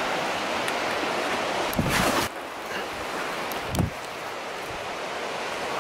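Footsteps crunching through dry twigs and brush over a steady rushing noise, with a louder crunch about two seconds in and a low thud near four seconds.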